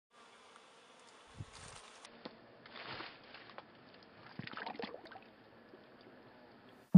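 Faint pond water sounds: small irregular clicks and light splashes, busiest between about four and five seconds in, as a turtle slips off a rock into the water.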